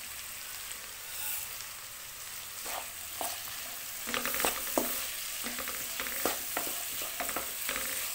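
Chopped onions, green onion and capsicum sizzling in oil in a non-stick wok, with a steady hiss. From about three seconds in, a wooden spatula stirs them, scraping and tapping against the pan in short strokes.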